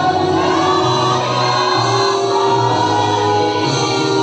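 A choir of men and women singing together in long held notes that change about once a second.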